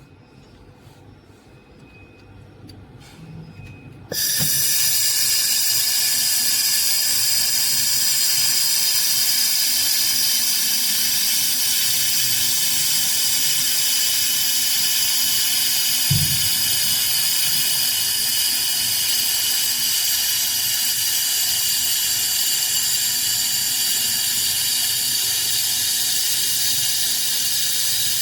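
2000 W air-cooled handheld laser welder welding 4 mm brass: a loud, steady hiss starts suddenly about four seconds in and holds on, with one brief low thump about halfway through.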